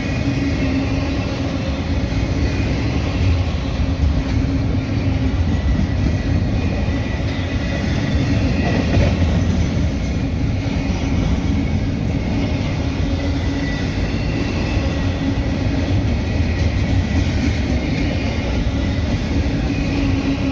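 CSX freight train rolling past: a steady, loud rumble of railcars on the rails with a steady hum running through it.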